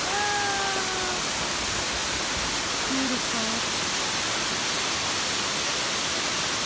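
Waterfall, a steady rush of falling water.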